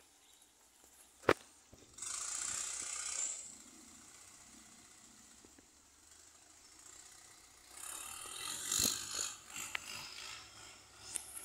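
Long-tail boat passing on a canal: its engine and wake are heard as a rushing noise that starts abruptly about two seconds in and comes back stronger near the end. A single sharp knock sounds a little over a second in.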